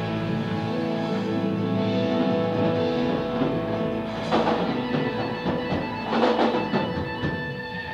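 Live blues-rock band with electric guitar, bass guitar and drum kit playing loudly. Sustained chords ring through the first half, then from about four seconds in, drum fills and cymbal crashes come in over them.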